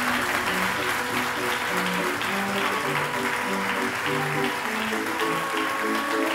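Studio audience applauding steadily while background music plays a simple melody of separate notes.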